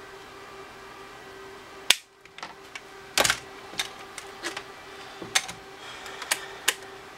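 Plastic clicks and knocks from a TI-83 Plus calculator and a multimeter being handled and set down on a bench mat. There is one sharp click about two seconds in, then a string of lighter, irregular clicks, over a faint steady hum.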